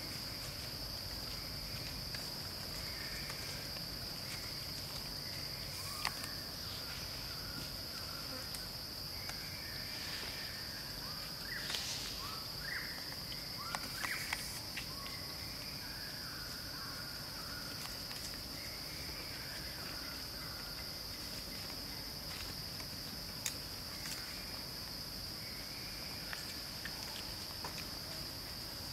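Steady high-pitched drone of insects, holding one pitch, with occasional faint short calls and a few soft clicks or rustles.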